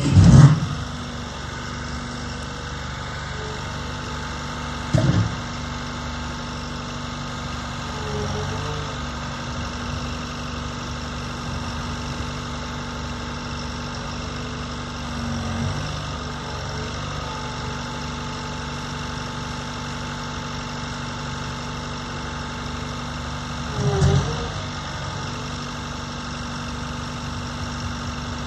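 Engine of a demolition machine running steadily at idle, with three heavy thumps: one right at the start, one about five seconds in, and one near the end.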